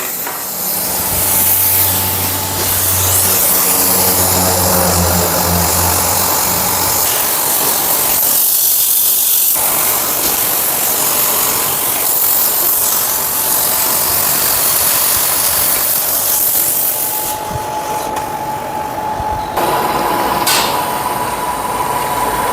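Oxy-fuel cutting torch on a motorised pipe cutter burning through a steel pipe: a loud, steady hiss of the cutting oxygen jet, with a low hum under it for the first several seconds.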